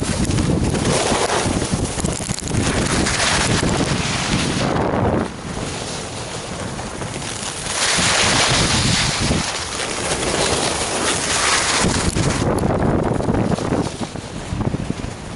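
Wind rushing over the microphone while riding downhill, with the hiss of edges sliding and scraping over groomed snow. It dips quieter for a few seconds in the middle and is brightest and loudest just after.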